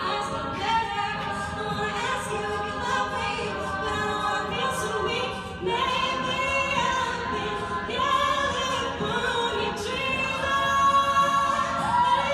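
All-female a cappella group singing, many women's voices in harmony with no instruments, a little louder near the end.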